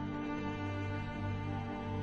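Background music of slow, long held notes.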